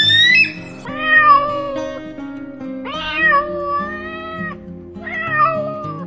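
Domestic cat meowing three times, long drawn-out meows, over background music. A high chirping call cuts off in the first half-second.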